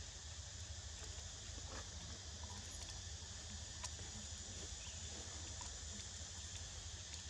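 Outdoor forest ambience: a steady high insect drone with a constant low rumble underneath and a few faint clicks.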